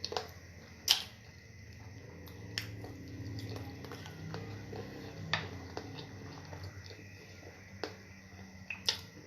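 Eating noises from fufu and stew: sharp, wet smacking clicks every second or few, the loudest about a second in, over soft chewing.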